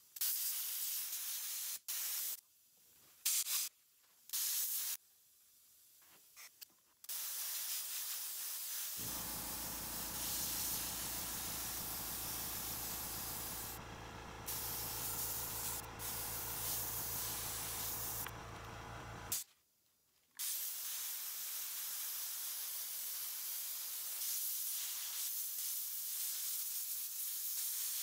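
Airbrush spraying paint: a few short hisses in the first seven seconds, then a long steady hiss broken by one brief pause about twenty seconds in. A low hum runs under the hiss for about ten seconds from about nine seconds in.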